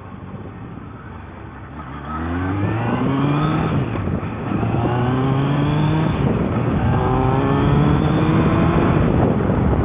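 Suzuki Bandit 1200S inline-four engine pulling hard from low speed about two seconds in. Its pitch climbs through the gears and drops back twice as it shifts up.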